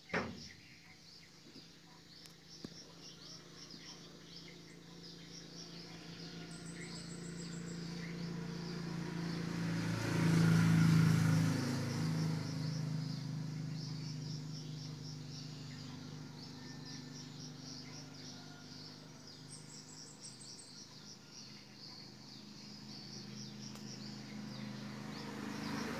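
Night insects chirping in a steady rhythm of short high-pitched pulses, joined twice by a brief, higher buzzing trill. Beneath them a low hum builds, is loudest about ten to twelve seconds in, then fades. A single sharp click at the very start.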